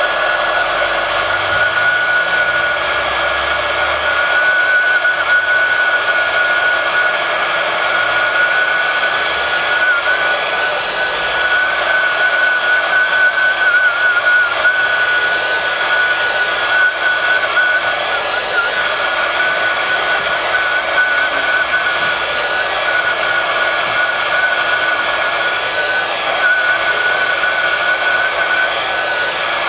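Hot-air blower running steadily, a loud rushing of air with a high whistle on top, heating the front glass of a Sony Xperia Z1 Compact to soften the screen adhesive so the cracked glass can be lifted off.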